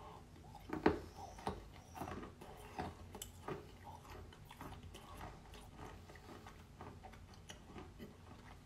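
A person chewing a wet chunk of natural clay chalk soaked in clay water, close to the microphone. There is one loud crunch about a second in, then a run of small clicky crunches and squishes as it is chewed.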